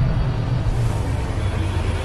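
Background soundtrack music with a steady low rumble underneath.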